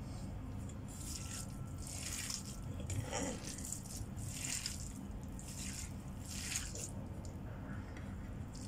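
A bare hand kneading and squishing a raw ground beef, diced mushroom and carrot filling in a stainless steel bowl: short wet squelches in irregular strokes, about one a second.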